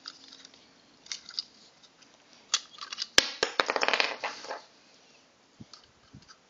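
Plastic blister packaging of a toy cap gun being wrestled open by hand: scattered crackles, a sharp snap about three seconds in, then a second or so of dense crinkling plastic.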